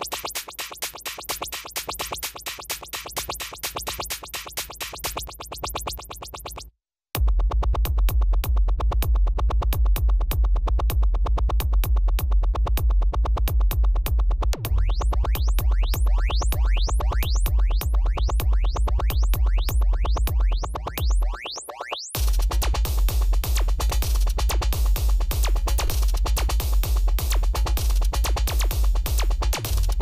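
Fast, hard electronic dance music played in a live DJ set: a rapid clicking beat cuts out to silence about seven seconds in, then comes back with heavy bass and rising sweeps. After a brief break about twenty-two seconds in, it turns into a fuller wall of sound.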